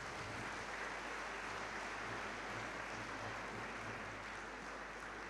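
Faint, steady applause from a seated audience.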